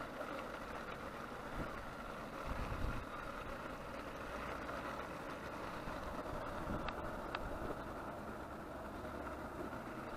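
Portable butane cassette stove burning steadily under a foil pot of udon broth simmering down, a continuous hiss. A brief low rumble of wind on the microphone about two and a half seconds in.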